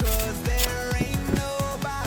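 Background music: an electronic pop / R&B track with a steady beat and sustained synth notes.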